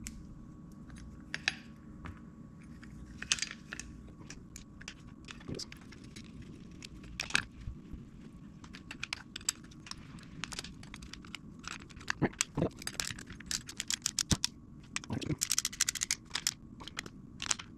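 Small metallic clicks and taps of hand tools and hardware as bolts and nylon lock nuts are fitted and tightened on a chainsaw's felling dog, with runs of rapid clicking in the second half.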